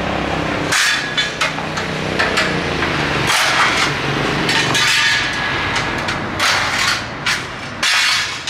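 Irregular metal knocks and clanks, several a second, from work on the scooter's metal shipping crate frame.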